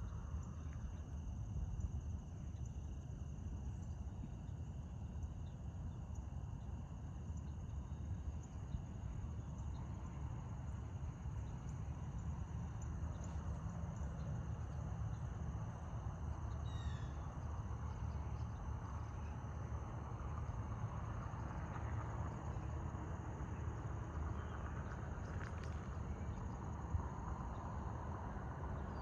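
Rural ambience: insects chirring steadily over a low rumble.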